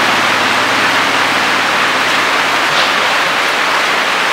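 Heavy rain pouring down as a loud, steady hiss.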